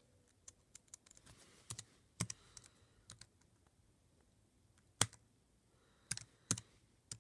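Typing on a laptop keyboard: irregular key taps with a few harder strikes, the loudest about five seconds in.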